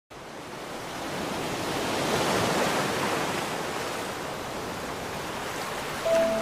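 The rush of an ocean wave washing in, swelling for a couple of seconds and then slowly receding. Near the end a sustained music note comes in.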